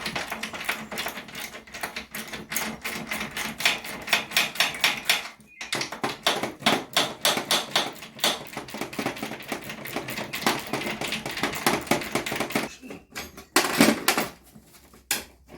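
Ratchet spanner clicking rapidly in short runs as fixings are worked loose, with a louder metallic clunk near the end.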